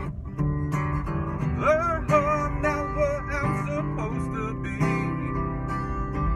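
Acoustic guitar strummed and picked, with a man singing a blues song over it, played live.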